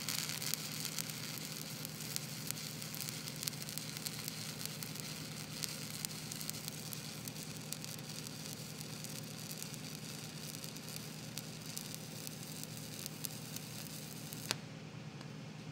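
Arc welding on a steel plate test coupon: the arc gives a steady crackling sizzle with fine spatter ticks, and it cuts off with a click near the end.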